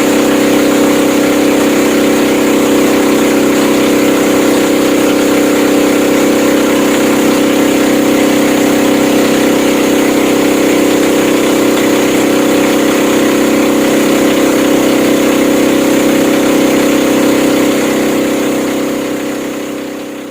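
Motorboat engine running at a steady pitch, fading out near the end.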